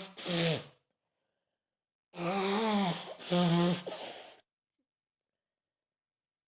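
A woman with a mild cold sneezing: the end of one sneeze right at the start, then another about two seconds in, a drawn-out voiced wind-up followed by a sharp release.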